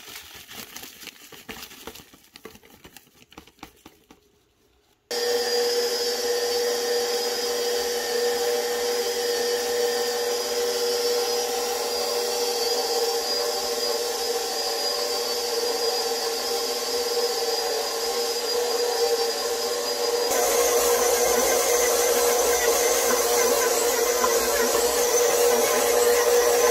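Plastic zip bag rustling as crushed candy cane is tipped out, then a stand mixer's motor starts suddenly about five seconds in and runs steadily with a constant hum, its flat beater mixing flour into butter for cookie dough. From about twenty seconds in it runs louder and brighter.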